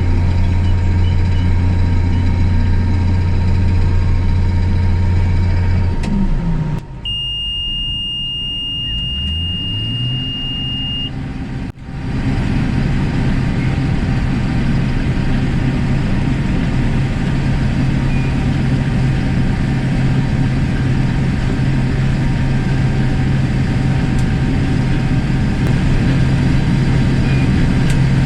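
Combine harvester's diesel engine and threshing machinery running steadily while cutting soybeans. About six seconds in the drone drops away, a steady high beep sounds for about four seconds and an engine note rises. The steady running then resumes at a slightly higher pitch.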